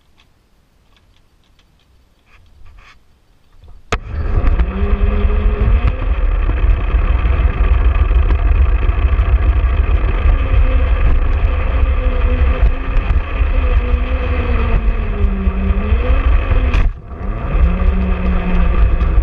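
The electric motor and gears of a self-propelled model-railway wagon whine as it runs along garden-railway track, over a heavy rumble of its wheels on the rails, heard from a camera riding on it. The sound starts abruptly about four seconds in after a quiet start, its pitch wandering up and down with speed. Near the end it cuts out briefly, then picks up again.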